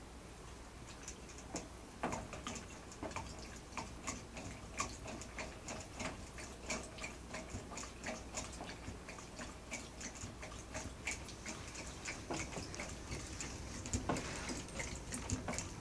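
Miniature Pinscher drinking from a pen-mounted water bottle, its tongue lapping at the metal nozzle in a rapid, uneven run of clicks, about three a second, louder near the end.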